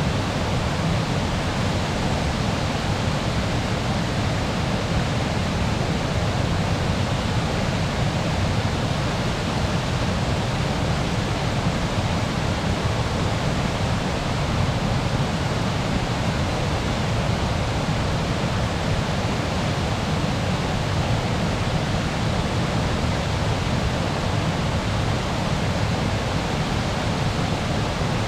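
A waterfall: water falling and splashing in a steady, unbroken rush.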